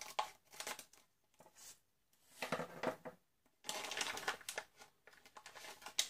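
Crinkling of a metallised anti-static bag as it is cut open with scissors and handled, in irregular bursts.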